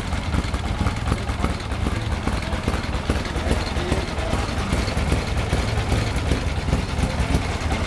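Avinton motorcycle's air-cooled V-twin engine idling steadily with a low, even pulse and no revving.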